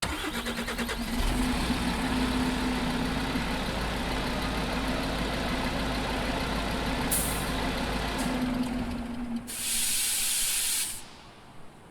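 Scania bus engine starting up and running, with a steady overtone hum from the big engine cooling fans reverberating in a large metal shed. A short hiss comes about seven seconds in, and a loud hiss lasting about a second and a half comes near the end, after which the sound drops away.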